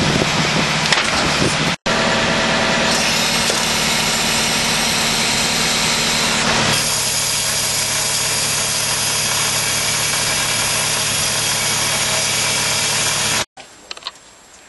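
A machine's diesel engine runs loudly and steadily, with a steady low hum and a hiss above it. The sound drops out for an instant about two seconds in, shifts in tone about seven seconds in, and cuts off suddenly near the end, leaving something much quieter.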